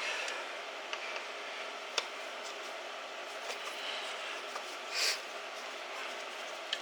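Faint workshop background with a few small metallic clicks of tools and engine parts being handled, and a brief hiss about five seconds in.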